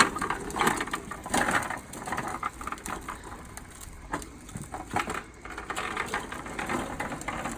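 Irregular clicks, knocks and rustles of objects being handled.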